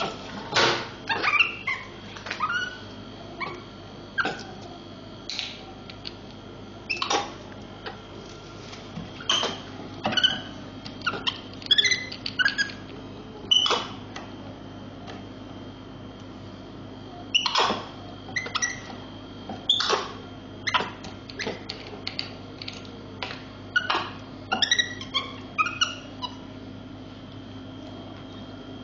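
Pet monkey giving many short, high squeaks and chirps, mixed with sharp clicks and clatter, over a steady low hum.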